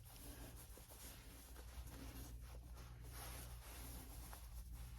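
Faint rustling and scratching of clothing being handled, over a low steady hum.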